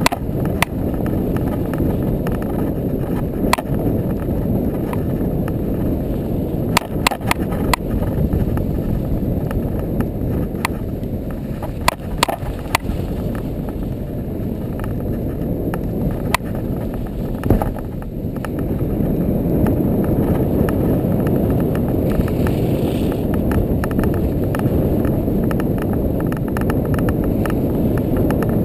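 ATV running through deep snow: a steady engine-and-tyre rumble that grows louder about two-thirds of the way through, with scattered sharp knocks and rattles as the quad jolts over the track.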